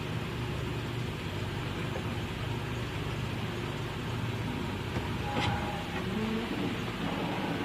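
Steady low mechanical hum, with a single sharp click about five and a half seconds in.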